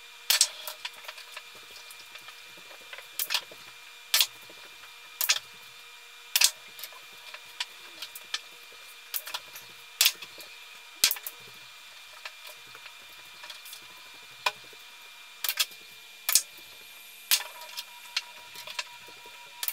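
Sharp, irregular clicks of pool balls during play: the cue tip striking the cue ball, balls knocking together and dropping into pockets, about one click every second.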